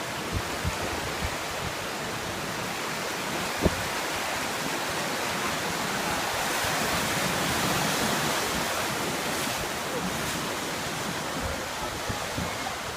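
Ocean waves washing in at the shore, a steady rush that swells midway and eases again, with one brief knock a few seconds in.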